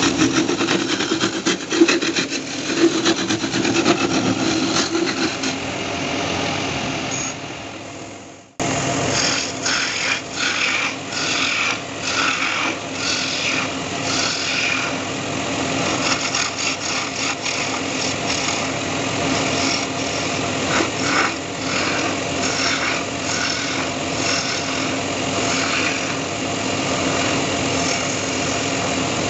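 Wood lathe running while a hand-held turning chisel cuts a spinning wooden sofa leg: continuous scraping and shaving over the steady hum of the machine, in short repeated strokes. The sound breaks off for an instant about a third of the way in, then resumes.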